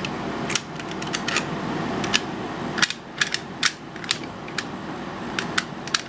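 Mortise lock set being worked by hand: a run of sharp, irregular metallic clicks, some in quick succession, from the lock mechanism and its parts, over a steady background hum.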